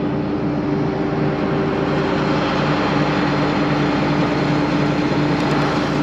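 Large diesel engine of harvest machinery running steadily, a constant drone with no change in speed.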